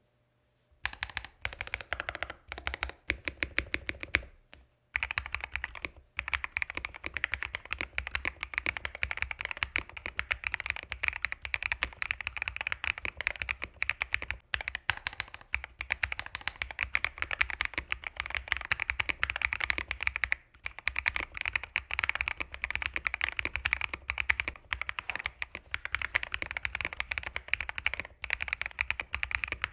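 Owlab London Fog mechanical keyboard with fully hand-lubricated switches, typed on quickly and continuously: a dense run of clacking keystrokes with brief pauses about five seconds in and about two-thirds of the way through.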